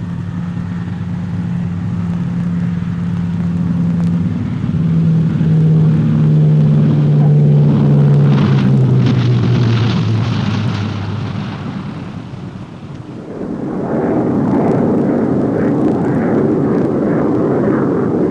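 Aircraft engine passing close by, its low tone falling in pitch as it goes, followed by a louder, steady rushing engine noise from another aircraft.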